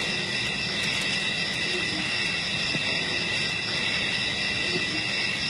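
Steady, continuous insect chorus: a dense, high-pitched drone of the bush, unchanging throughout.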